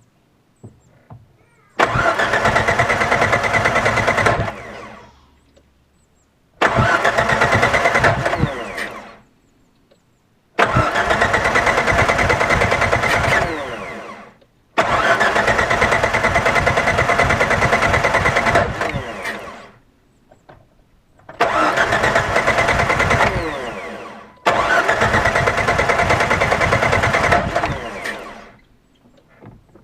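1998 Jeep Wrangler TJ engine cranked on the starter six times, each try lasting a few seconds and then let go, without the engine catching. It is a no-start that the owner traced to a faulty pickup plate under the distributor cap.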